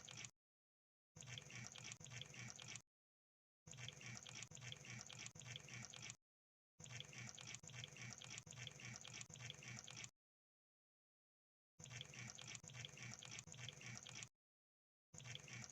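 Crab sound effect: wet, crackling clicks in bursts a second to three seconds long, broken by dead-silent gaps.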